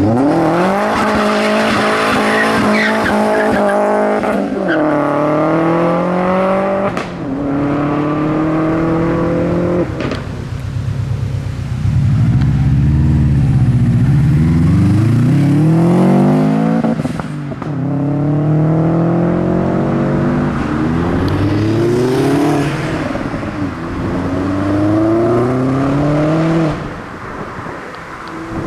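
Modified car engines accelerating hard, one after another, each revving up in pitch and dropping at gear changes; one car's pitch rises and falls as it goes by.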